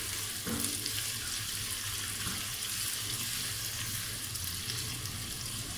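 Sliced onions and whole spices frying in hot oil in a nonstick pot: a steady sizzle as a spatula stirs them.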